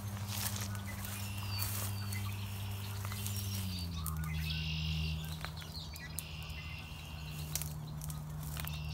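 Birds calling in short chirping phrases, about a second each and repeated every couple of seconds, over a steady low hum that drops slightly in pitch a few seconds in. A few sharp clicks stand out.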